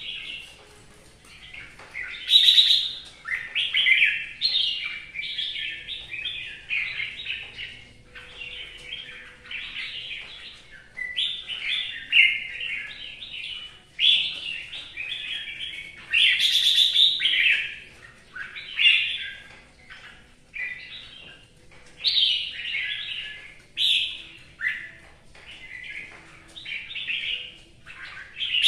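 Caged red-whiskered bulbul singing a long run of short, loud warbling phrases, one after another with brief pauses between them.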